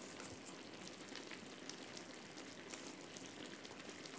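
Faint, steady crackling and bubbling of thick egusi soup simmering in a pan.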